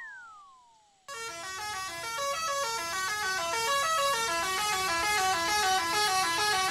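The falling tail of a cartoon boing sound effect fades away, then about a second in a loud layered horn sound effect starts: many horn tones sounding together, stepping up and down in pitch in a repeating pattern.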